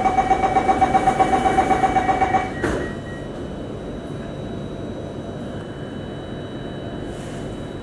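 Singapore MRT train's door-closing warning: a rapid beeping tone, about five beeps a second, then the sliding doors shut with a thud about two and a half seconds in. After that only the steady hum of the stationary train remains.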